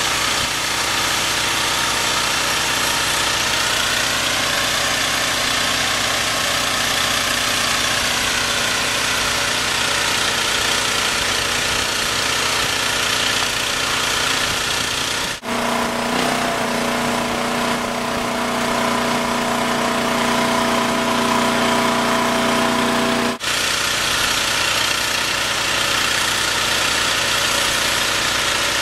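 Engine of an aquatic weed harvester running steadily under load, driving the hydraulic conveyors that unload weeds onto a shore conveyor. The sound breaks off abruptly twice, with a stronger steady hum in the stretch between.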